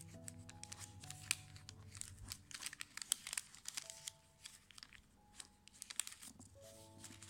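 Brown paper crinkling in irregular crackles as hands fold it around a small bar of soap, with faint music playing.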